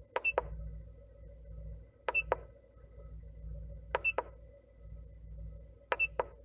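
Foxwell NT650 Elite scan tool's keypad beeping as its buttons are pressed to scroll through live engine data: four presses about two seconds apart, each a click with a short high beep followed by a softer click.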